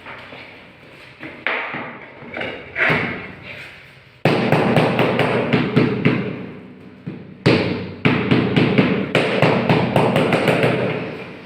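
Mallet knocking on a marble floor tile to bed it into the mortar: loud runs of quick, repeated thuds, a few single knocks first, then two longer runs of rapid strikes.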